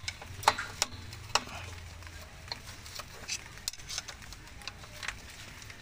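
A screwdriver tip scraping and clicking against the steel hardware of a drum brake, prying at a shoe spring and the adjuster: scattered sharp metal clicks over light scratching, the strongest three in the first second and a half.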